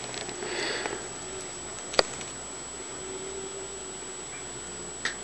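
Quiet room tone with a soft rustle near the start, one sharp click about two seconds in, and a smaller click near the end.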